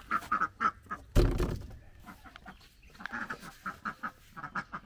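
Indian Runner ducks quacking and chattering in quick, short calls, with a single loud thump about a second in.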